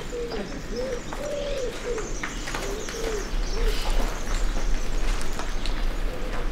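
A dove cooing: a run of short, rising-and-falling coos that stops a little past halfway, with faint footsteps alongside.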